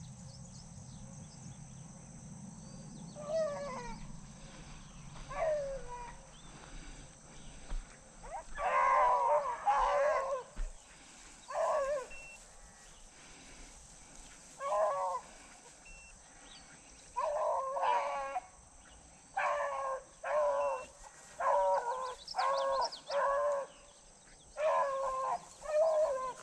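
Beagles baying on a rabbit's track, drawn-out bawling calls that start faint and come louder and more often toward the end as the pack runs the trail.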